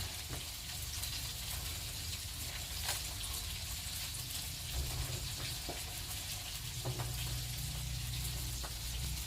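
Fish frying in hot oil, a steady sizzle with a few faint pops and clicks.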